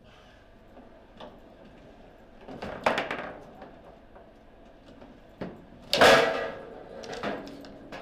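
Foosball play: the hard ball struck by the rod figures and knocking against the table in a few sharp knocks, the loudest about six seconds in, as a goal is scored.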